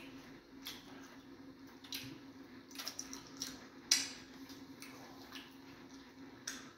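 Close-up wet eating sounds of fufu and egusi soup eaten by hand: scattered smacks and squelches of chewing and of soft dough being pinched and pressed, the sharpest about four seconds in, over a faint steady hum.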